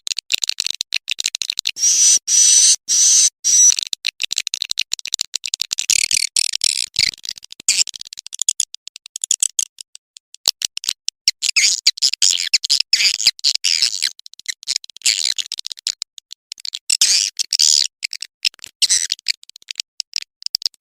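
Edible-nest swiftlets twittering: dense runs of rapid, high-pitched chirps and clicks broken by short pauses, with a few held whistled notes about two seconds in. This is a swiftlet lure call ('suara panggil') played to draw swiftlets into a swiftlet house to roost and nest.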